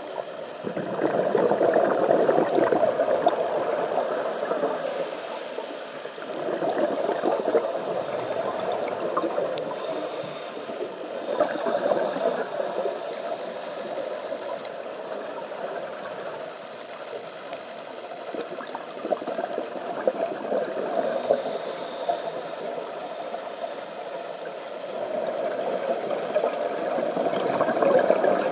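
Scuba regulator breathing underwater: a gurgling rush of exhaled bubbles every five or six seconds, with a short hiss of inhaled air between the bubble bursts.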